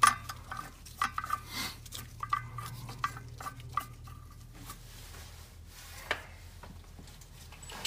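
Bolt being turned by hand into the primary clutch of a UForce 1000, started carefully across an air gap into the next set of threads: light, irregular metallic clicks and scrapes that thin out after the first few seconds, over a low steady hum.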